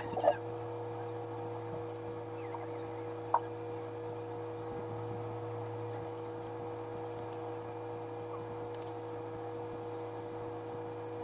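Steady low hum with a couple of fainter held higher tones, and one short click about three seconds in.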